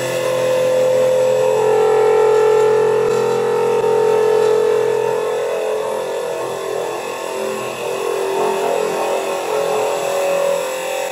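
An EagleTec EA-TL1530B CNC wood lathe hollowing out the inside of a spinning wooden pen container. The cutter scrapes through the wood over a steady machine whine.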